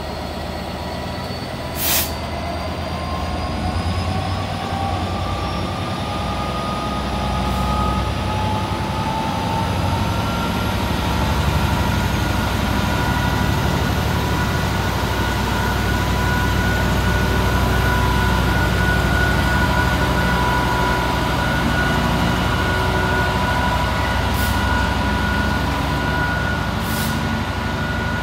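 Class 66 diesel-electric locomotive, with its two-stroke V12 engine, pulling a container freight train slowly away: a heavy engine rumble with a whine that rises in pitch over the first dozen seconds as the train picks up speed, then holds steady. A sharp knock comes about two seconds in.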